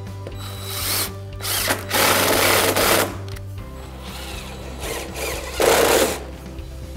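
Cordless drill driving 3-inch screws through a door follow board into wood framing, in separate runs: a short one about a second in, a long one of about a second and a half, and a short one near the end.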